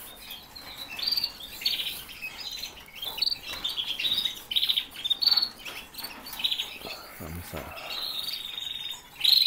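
Domestic canaries chirping and calling, with many short chirps and rapid trilled notes in quick succession and a steadier buzzy note near the end.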